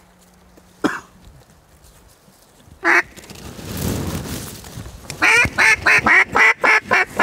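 Hen-mallard quacks blown on a duck call: a single quack about a second in, another near three seconds, then a fast run of about eight loud quacks near the end, calling to mallards circling overhead.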